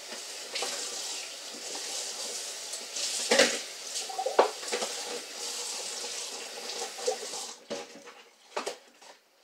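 Kitchen faucet running into the sink, a steady hiss with a few knocks of things in the sink, then turned off near the end.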